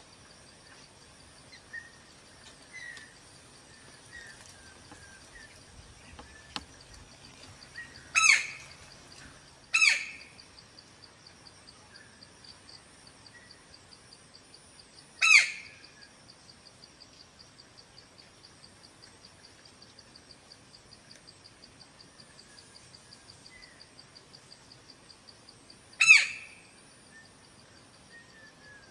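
White-bellied Woodpecker giving loud, harsh single calls, four times, each a short note falling sharply in pitch. Faint soft chirps and a steady high pulsing drone run underneath.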